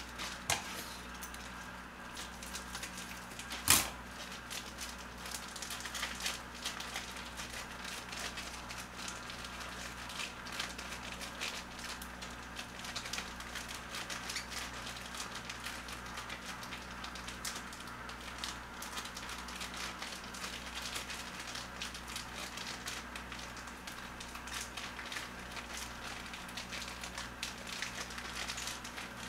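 Plastic food packaging crinkling and rustling as meal-kit pouches are opened and handled, with one sharp click about four seconds in, over a steady low hum.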